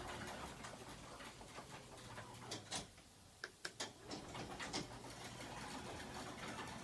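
Garage door mechanism running: a faint steady motor hum with scattered clicks and rattles. The hum drops out briefly about three seconds in while a quick run of sharp clicks continues.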